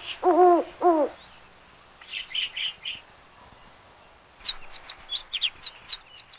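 Two low, arched hooting bird calls in the first second, then a short run of high chirps. About four and a half seconds in, a quick series of many high bird chirps begins.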